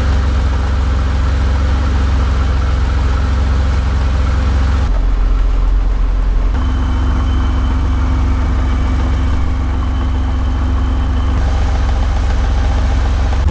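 BMW 635CSi's straight-six engine idling steadily, its tone shifting abruptly about five seconds in and again a little later.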